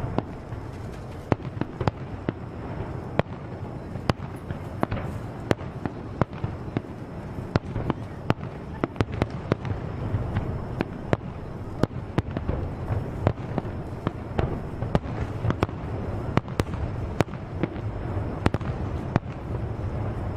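Fireworks going off: a dense crackling with sharp irregular bangs, several a second.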